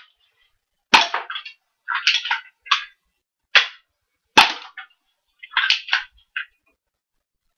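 Walther P99 spring-powered airsoft pistol fired several times in a row: sharp snaps mixed with short clacks, irregularly spaced, as the slide is cocked between shots.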